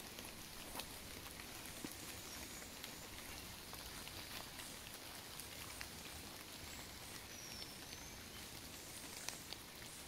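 Faint light rain pattering on forest leaves, with scattered single drops ticking through it. A brief high chirp comes about eight seconds in.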